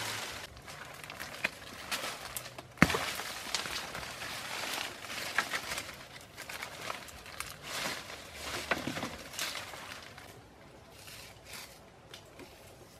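Dry leaves and brush rustling and crackling as woody forest vines are tugged down through the undergrowth, with one sharp snap about three seconds in, the loudest sound. Barefoot steps crunch on dry leaf litter, and the rustling thins out to scattered crackles near the end.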